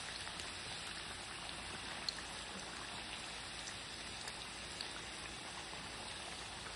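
Papdi deep-frying in hot oil in a steel kadhai: a steady soft sizzle with a few faint ticks.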